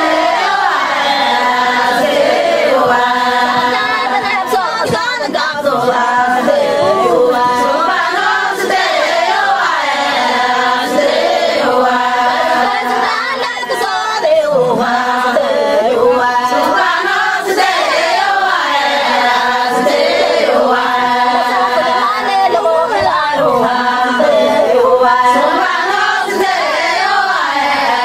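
Music: a group of voices singing together in chorus over held accompaniment tones and light percussion.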